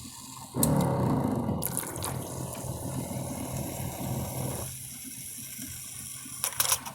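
Single-serve pod coffee machine brewing: its pump hums and coffee streams into the cup, starting suddenly about half a second in, then dropping to a quieter hum a little under five seconds in as the brew finishes. A few sharp clicks come near the end.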